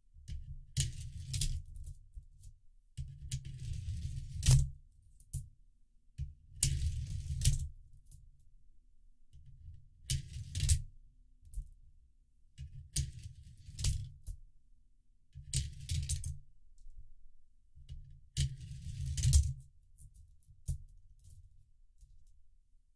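Coins going one by one through a 3D-printed plastic coin sorter: each one rolls with a low rumble and clinks sharply as it drops. There are about nine such runs, a couple of seconds apart, and the loudest clink comes about four and a half seconds in.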